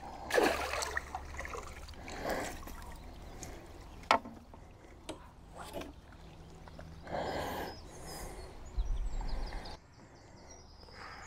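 Intermittent splashing and sloshing of lake water, with rustles and a sharp click of fishing tackle being handled at the water's edge.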